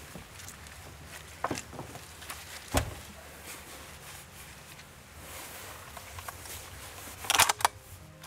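Gear and a rifle handled at a pickup truck: scattered knocks and clicks, a heavier thump about three seconds in, and a quick run of sharp clacks near the end.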